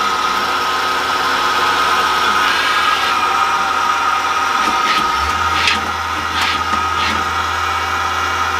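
Citizen L20 CNC Swiss-type screw machine running: a steady high whine over mechanical noise, with several short hissing bursts. A low hum joins about five seconds in.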